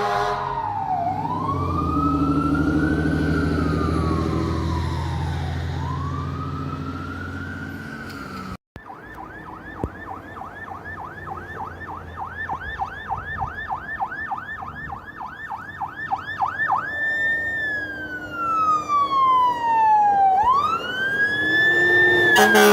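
Electronic emergency-vehicle sirens. A slow wail rises and falls over a low rumble of engine and traffic. After a cut, a fast yelp sweeps at about four times a second, then switches back to a slow wail that grows louder near the end.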